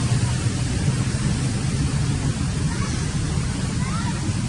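Steady low rumbling noise with a hiss over it, and a few faint short chirps in the second half.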